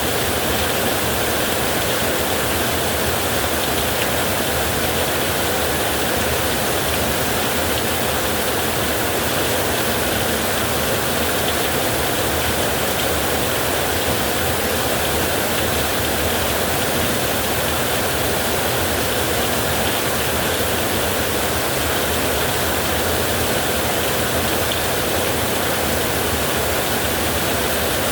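Creek water flowing steadily, an even rushing hiss without breaks.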